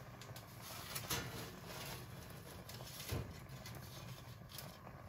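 Faint crinkling of aluminium foil as a foil-backed laptop logic board is slid onto a wire oven rack and adjusted by hand, with a couple of light knocks, about a second in and about three seconds in.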